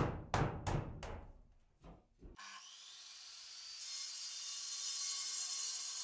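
Angle grinder cutting brick: a steady hissing grind that grows gradually louder from a little over two seconds in. Before it, a quick run of sharp knocks, about three a second, dies away after the first second.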